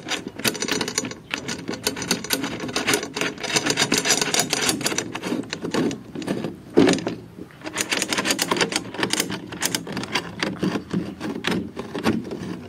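Tom drum's tension rods being spun finger-tight by hand around the rim: a rapid, dense metallic clicking and rattling of the rods and hoop, with a short pause about six seconds in.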